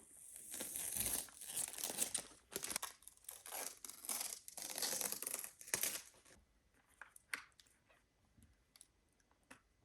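Plastic wrapping crinkling and tearing as it is pulled off a new keyboard, for about six seconds, then a few scattered light clicks and taps.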